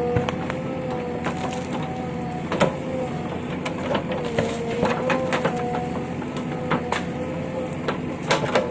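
Excavator running with a steady, slightly wavering whine, while broken rubble clatters and knocks irregularly as it is spread, with a burst of sharp knocks near the end.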